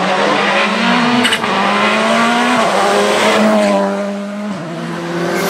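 Volkswagen Polo rally car driving past hard on a tarmac stage, its engine at high revs. The engine's pitch climbs and drops back several times as it changes gear, and the sound fades slightly as the car pulls away.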